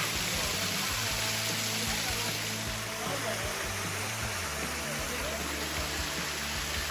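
A small waterfall's steady rushing, with background music of held low notes that change about four and a half seconds in.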